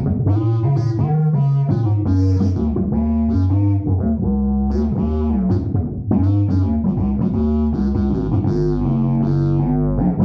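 Fretless electric bass played through a Phil Jones Bass amp: a melodic line of notes that slide and bend between pitches over a sustained low bass note.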